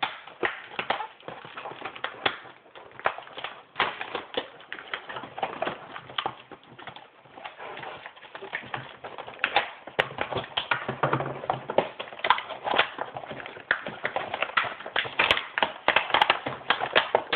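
Toy bow-set packaging handled by hand: irregular clicks, taps and crackles of plastic and cardboard as the arrows are worked loose from the box insert.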